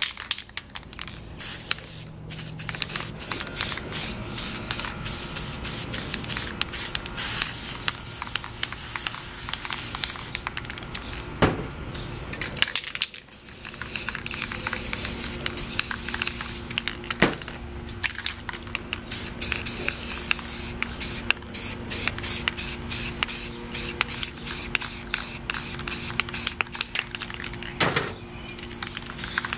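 Aerosol spray paint cans hissing as paint is sprayed onto poster board, in short bursts and longer spells of spraying, with quick sharp clicks in between.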